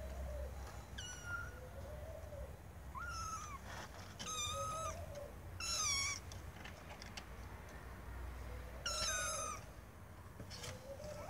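Young tabby kittens meowing: about five high, thin mews with pauses between, some rising then dropping in pitch.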